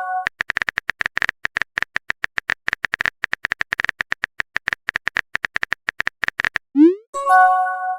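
Phone keyboard typing sound effect: rapid, even clicks for about six seconds. Near the end come a short rising swoop and a chime of a few steady tones, a message being sent and arriving.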